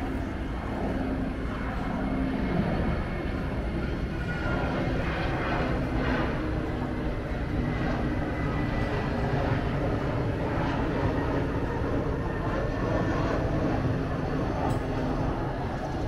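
Airliner's engines running as it passes on its landing approach: a steady rumble with a faint high whine.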